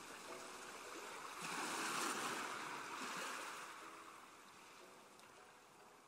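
Faint sea surf washing up a sandy beach: one wave swells about a second and a half in, then drains away and fades.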